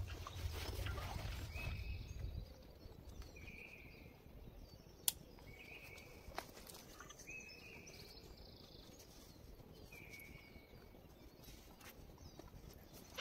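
A bird repeats a short high call every second or two over quiet woodland air. A low rumble sounds during the first couple of seconds, and two sharp clicks come around the middle.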